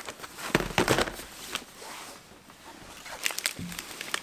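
Plastic packaging rustling and crinkling as shrink-wrapped boxes and snack packets are handled, loudest in the first second, with a few sharp clicks about three seconds in and a soft thud just after.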